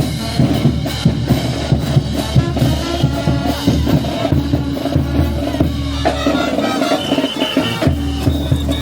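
Brass band playing a festival dance tune, with bass drum and snare drum keeping a steady beat under horns holding long notes.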